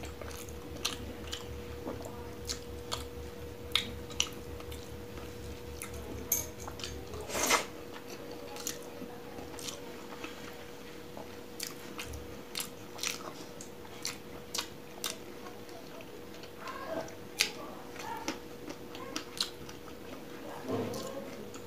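Close-miked chewing of chicken curry and rice eaten by hand, with sharp wet mouth clicks and smacks scattered throughout. A faint steady hum runs underneath.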